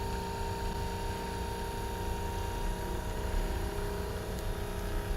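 Handheld electric massager running steadily, a motor hum with a low buzz, worked on a patient's muscles.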